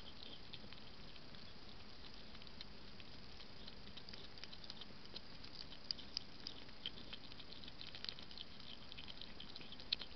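Hedgehog eating from a feeding dish: quick, irregular little clicks and smacks of chewing over a steady hiss, with a few louder clicks about halfway through and near the end.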